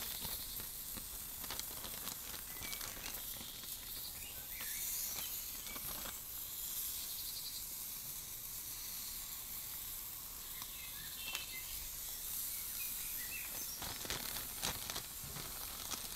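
Marinated beef sizzling on a hot cast-iron Korean barbecue grill insert over charcoal: a steady high hiss with scattered sharp clicks as pieces are laid on with a fork.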